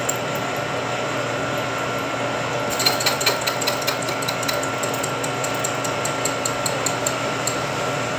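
Vertical milling machine cutting a keyway into a hard metal impeller hub, the cutter running with a steady high squeal. From about three seconds in, a fast run of fine ticks joins the squeal.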